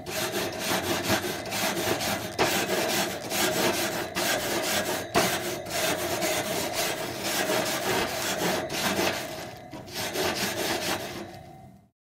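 A barbecue grill grate being scrubbed clean: rapid back-and-forth scraping strokes that stop abruptly near the end.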